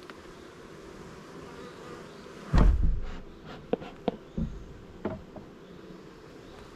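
Honeybees buzzing steadily around an open hive. About two and a half seconds in there is a loud thump, followed by a few sharp knocks and clicks as wooden hive frames and boxes are handled.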